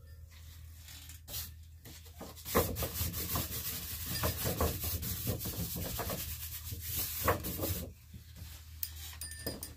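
Close rubbing and scraping with many small clicks and crackles, starting about two and a half seconds in and dying down near the end.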